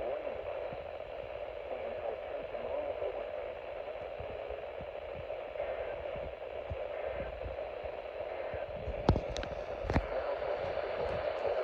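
Weather radio receiver static: a steady hiss with no voice on the channel, broken by a few sharp clicks near the end.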